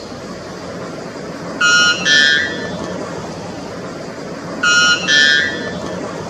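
Male white bellbird singing its loud two-note song, a lower ringing note followed by a higher one. The song comes twice, about three seconds apart, over a steady background hiss.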